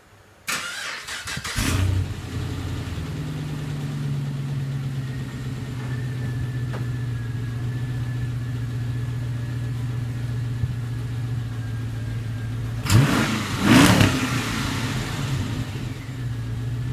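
Pontiac G8 GT's 6.0-litre V8, exhaling through GXP mid-pipes and mufflers, being started: a short crank, a flare as it catches, then a steady idle that steps down a little in pitch. About thirteen seconds in the throttle is blipped twice in quick succession, the revs rising and falling back to idle each time.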